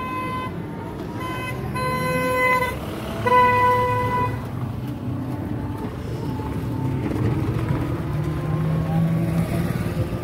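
A vehicle horn honking in four short steady blasts over the first four seconds, then the running noise of the moving vehicle and road traffic.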